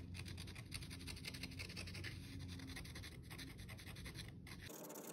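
X-Acto knife blade held flat and scraped across dry watercolour paper in a quick run of short scratching strokes, lifting the paper's surface to leave white highlights. It sits over a low steady hum, and both cut off abruptly near the end.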